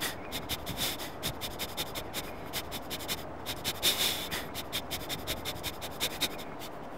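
Quick, repeated sniffing of a dog tracking a scent along the ground, several short noisy sniffs a second in an uneven rhythm.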